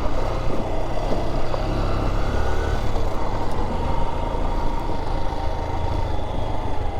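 Single-cylinder engine of a Honda XR trail motorcycle running steadily as the bike is ridden, with a heavy low rumble.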